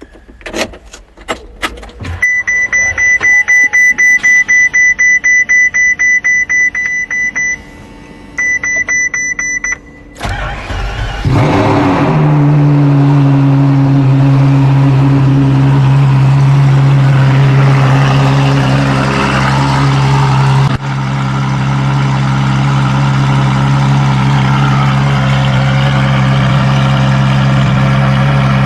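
A few clicks, then a rapid, evenly pulsing electronic warning chime from the car for several seconds. About ten seconds in, the LaFerrari's naturally aspirated V12 cranks and fires on a cold start, flaring briefly before settling into a steady idle.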